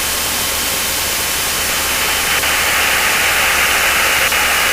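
Steady static hiss on an aircraft radio feed, with a faint low drone beneath; the hiss gets louder and brighter about two seconds in, as a radio channel opens before the next transmission.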